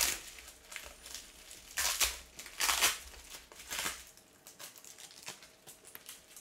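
Packing tape ripped off a bubble wrap sleeve with a loud tear at the start, then the plastic bubble wrap rustling and crinkling in three short bursts as the sleeve of comics is handled and opened.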